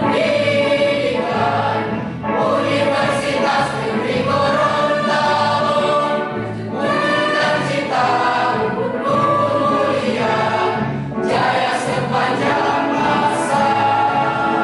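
A mixed choir singing in parts over a steady low beat of about two pulses a second.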